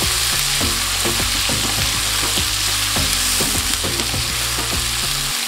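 Chopped onions frying in hot mustard oil in a pan, a steady sizzle, with a spatula stirring and scraping through them every so often.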